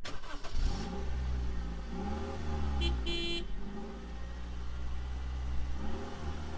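Car engine running and revving up and down, with a short high-pitched beep about three seconds in.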